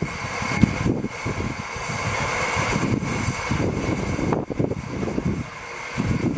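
Miniature steam locomotive standing in steam, hissing steadily with a faint high steady tone in the hiss, over an irregular gusty low rumble.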